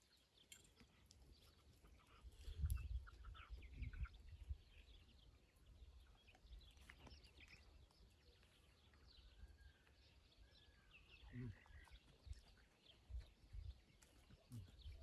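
Quiet countryside with faint birds chirping and calling: many short high chirps and a few arched whistles. Occasional low rumbles come through underneath.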